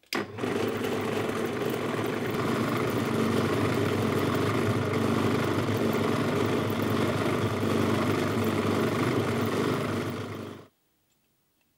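Electric drill press switched on and running steadily, its motor and spindle humming, then cutting off suddenly near the end.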